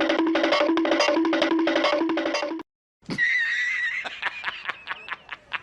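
Two sound-effect clips in a row. First, a short musical loop of a repeated note figure that cuts off abruptly. Then, after a brief silence, a high wavering tone followed by a quick run of clicks, about five a second, growing fainter.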